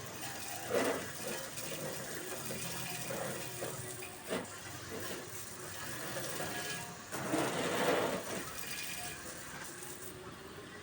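Water spraying from a brass hose spray nozzle, a steady hiss that swells louder a few times, about a second in, around four seconds and near eight seconds.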